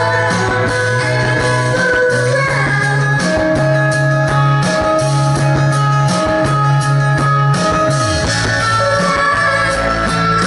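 Live rock band playing: a woman singing over electric guitar, drums and low bass notes that step from one held pitch to the next.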